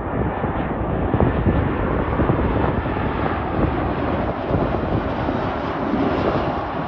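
Jet airliner passing low, its engines a steady rumble with a hiss that grows stronger toward the end.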